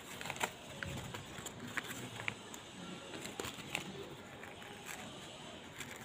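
Newspaper wrapping rustling and crinkling as it is pulled away from a succulent's root ball, with scattered sharp crackles and ticks.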